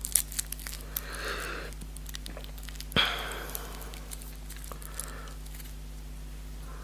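Small clicks and handling noises of a steel watch bracelet clasp being worked by hand as it refuses to open, with one sharper click about three seconds in. A short breathy noise about a second in, and a fainter one near five seconds.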